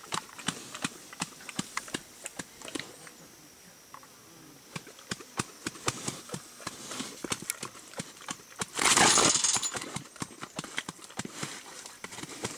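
A feral pig moving inside a wire cage trap: a rapid, irregular run of clicks and knocks from the animal against the mesh and the ground. About nine seconds in there is a loud rushing burst that lasts about a second.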